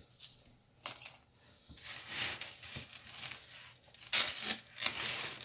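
Close handling noise as costume jewelry is sorted by hand: rustling and scraping with small clicks of chain and beads. It grows louder about four seconds in.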